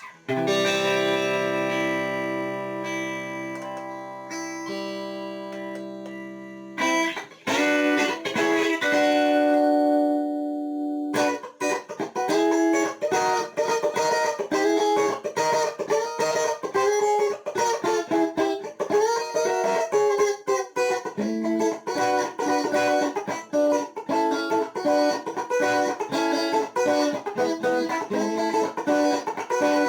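Electric guitar played through a multi-effect pedal with its compressor engaged. A chord is struck and left ringing for several seconds, then a few separate notes follow. From about eleven seconds in comes a fast run of picked notes held at a fairly even loudness.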